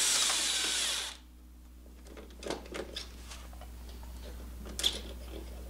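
A cordless power driver running on a socket extension as it spins a chain case bolt out, stopping about a second in. A few light metallic clicks and taps follow as the bolt and socket are handled.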